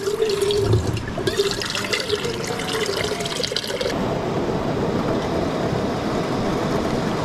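Water pouring from a plastic jug's spigot into a stainless steel percolator coffee pot, its note rising slightly as the pot fills. About four seconds in it changes suddenly to a steady even hiss: the propane camp stove burner heating the steaming pot.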